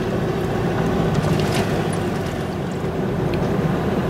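Steady engine and road noise of a moving car, heard from inside the cabin: an even low hum.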